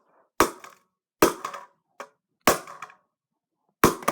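Four hard blows about a second and a quarter apart: a Razer DeathAdder mouse's plastic shell being struck in an attempt to smash it open, each strike fading quickly.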